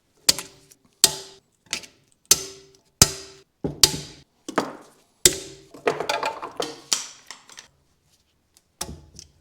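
Hammer blows on the locking ring of a BMW E46 trailing arm, knocking it round to loosen it. About nine sharp, ringing metal strikes come roughly every 0.7 s, then a flurry of quicker, lighter taps, and one last blow near the end.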